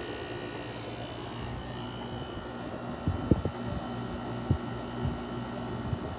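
Haier 5,200 BTU window air conditioner running, a steady electric hum with a whine from the compressor and fan. A few light knocks come about halfway through.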